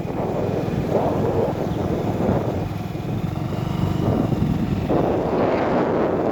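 Safari vehicle's engine running as it drives along, with wind gusting over the microphone in swells.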